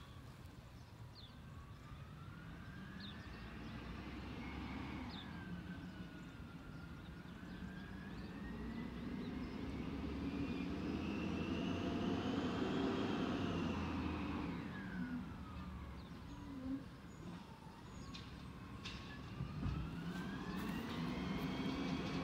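A siren wails in slow sweeps, rising and falling over several seconds, over the low running of a garbage truck's diesel engine, which swells about halfway through.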